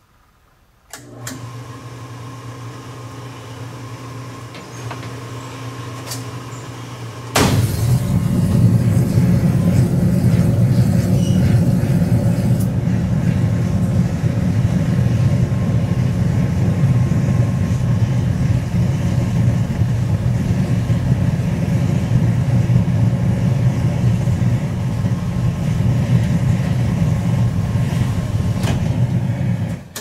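Oil furnace burner starting about a second in and running with a steady hum while it sprays unlit oil fog into the combustion chamber. About seven seconds in, the built-up fog ignites all at once: delayed ignition. The sound jumps suddenly to a loud, steady fire in the chamber, which drops away near the end.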